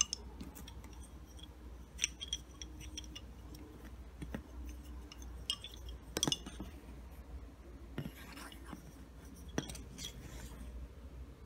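Wooden lace bobbins clicking against one another as pairs are lifted, crossed and twisted in bobbin lace making: scattered light clacks at an uneven pace.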